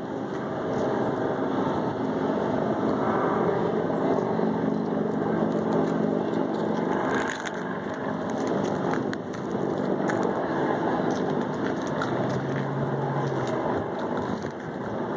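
Boeing 747 Shuttle Carrier Aircraft's four jet engines running on landing approach: a steady rushing engine noise with faint low hums, holding an even level.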